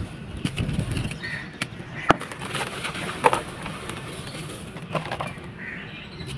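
Dry sand-cement balls being crumbled in a tub: gritty crunching and crackling with scattered sharp cracks, the two loudest about two and three seconds in.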